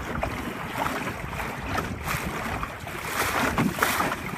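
Water rushing and splashing along the hull of a 12-foot wooden Whitehall sailing skiff under way, in irregular swishes, with wind buffeting the microphone as a low rumble.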